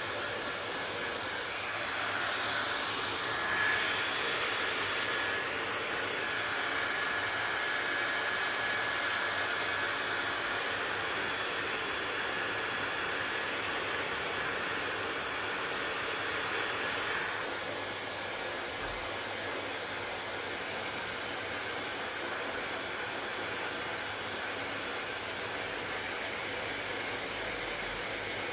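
Hair dryer running, a steady rush of air with a faint whine. It gets louder and brighter about a second and a half in, then drops back a little after about seventeen seconds.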